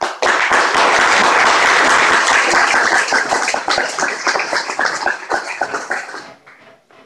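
Audience applauding: many hands clapping together, breaking out suddenly, strongest for the first few seconds, then thinning out and dying away near the end.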